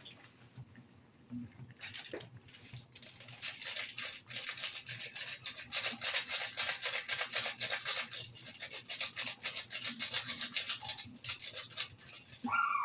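Pork and string-bean broth boiling hard in a wok, with a fast, dense crackle of popping bubbles that picks up about two seconds in. Near the end there is a brief, high call that falls in pitch.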